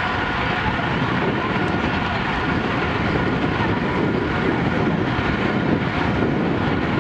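Steady wind rush on the microphone of a camera moving with a group of road bikes, with tyre and road noise underneath.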